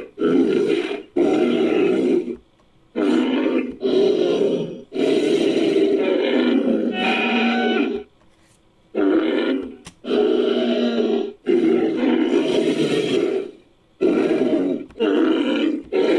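Designed creature calls blending Styracosaurus sound effects with Sumatran rhinoceros sounds: a series of about ten loud animal calls, each lasting from half a second to about three seconds, with short pauses between them.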